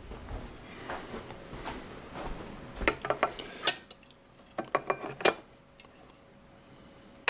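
Metal parts being handled: the new appliance door hinge picked up among tools, clinking and knocking, with a run of sharp clicks around three seconds in and another around five seconds in.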